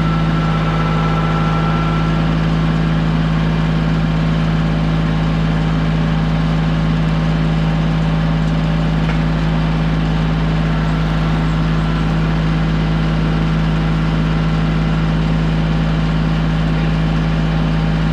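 A vehicle engine running at a constant speed: a steady, even drone with no change in pitch or load.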